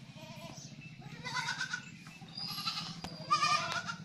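Goats bleating, three calls about a second apart, over a steady low hum.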